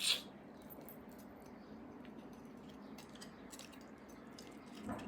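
Quiet close-miked chewing of bone marrow: soft wet mouth sounds with faint scattered clicks, after a brief noisy burst right at the start.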